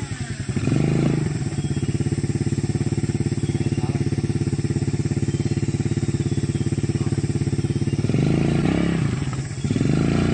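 Motorcycle engine running at a steady speed, then revving up and down a few times near the end.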